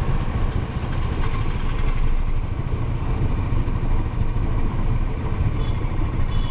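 Royal Enfield Bullet 500's single-cylinder engine running as the motorcycle rides along, a steady low rumble heard from the bike.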